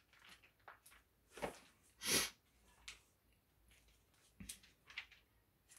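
Mostly quiet room with a few scattered faint clicks and taps as someone looks something up, and a short breathy rush, like a sniff, about two seconds in.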